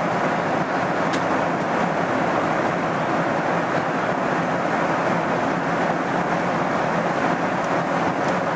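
Steady roar of an airliner's cabin noise in cruise, from the jet engines and the airflow over the fuselage, heard inside the cabin. A faint click about a second in.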